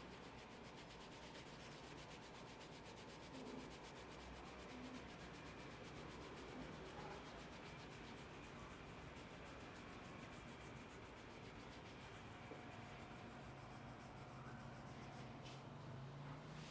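Faint, fast, even rubbing of a head massage working over hair and scalp.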